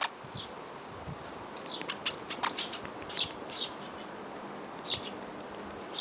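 Great spotted woodpecker pecking at a suet-and-seed ball in a net feeder: a quick run of sharp taps about two seconds in, with short high bird chirps on and off.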